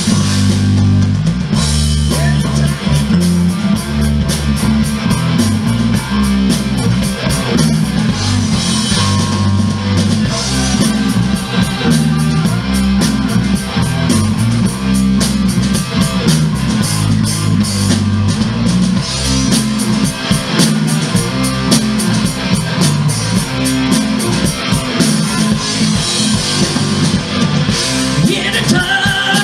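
Live rock band playing loudly: distorted electric guitar, bass guitar and drum kit, with a steady beat.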